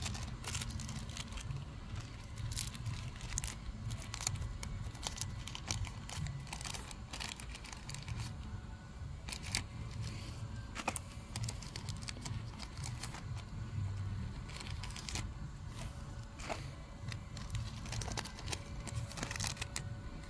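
Foil Pokémon card booster pack wrappers crinkling and tearing open, an irregular run of crackles and rustles throughout.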